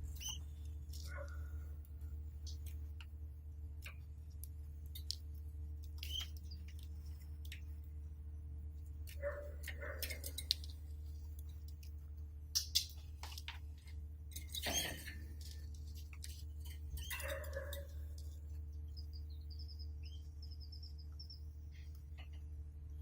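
Pet canaries giving a few short chirps among small clicks and taps as they move about the cage. Near the end comes a brief, rapid trill of high notes. A steady low hum runs underneath.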